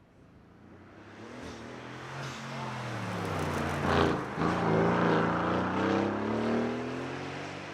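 A car driven flat out, approaching and passing close with its engine revving hard, a sharp crack as it goes by about four seconds in, then fading as it pulls away up the hill.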